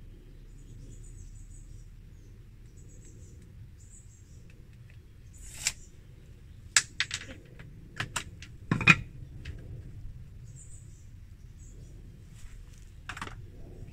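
Short wooden battens and tools knocking and clattering as they are picked up and set down, in a handful of sharp knocks through the middle, the loudest about nine seconds in and one more near the end. Faint bird chirps in the background.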